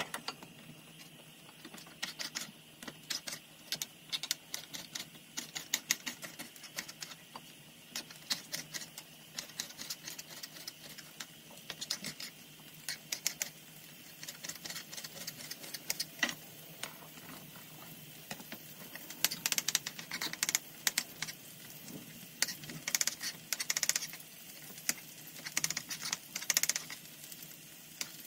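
Kitchen knife chopping on a plastic cutting board, dicing bell peppers and then slicing mushrooms: runs of quick taps with short pauses between.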